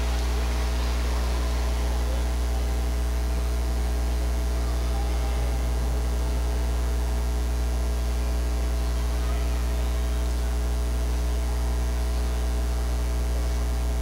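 Steady electrical mains hum with a stack of evenly spaced overtones, unchanging throughout, over a faint murmur of voices.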